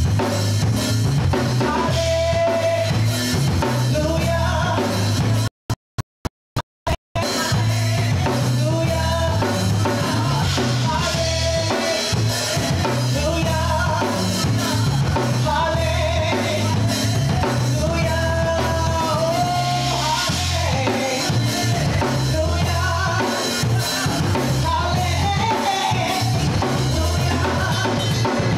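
A woman singing a worship song into a handheld microphone over a live band with drums. About six seconds in the sound cuts out completely several times in quick succession.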